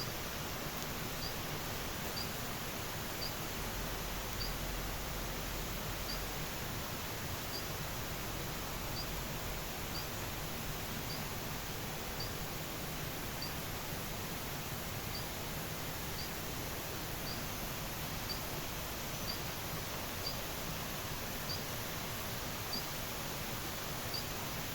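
Steady outdoor hiss with a short, high chirp from a small animal repeating about once a second.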